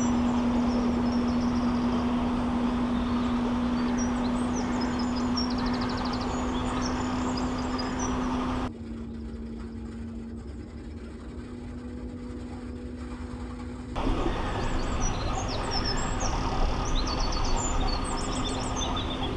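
Narrowboat under way: a steady low hum from the boat's drive over a rumble of wind and water, with small birds chirping and trilling throughout. About nine seconds in, the sound turns quieter and thinner for about five seconds, then returns.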